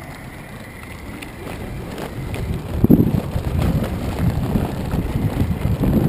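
Skateboard wheels rumbling over cobblestones, growing louder as the board speeds up, with a sharp jolt about three seconds in. Wind noise on the microphone rises near the end.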